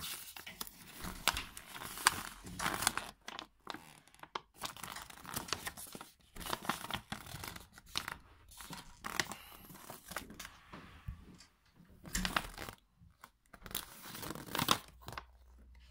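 Folded paper instruction manual being unfolded and handled, rustling and crinkling in fits and starts.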